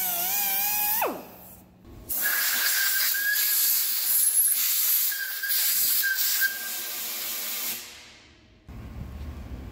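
A power tool's motor whining, then spinning down with a falling pitch about a second in. After a short pause comes a loud, steady hiss lasting about five seconds, which then cuts off.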